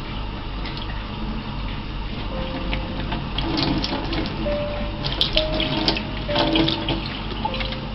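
Water running steadily, like a tap into a sink, with a burst of clicks and clatter in the middle.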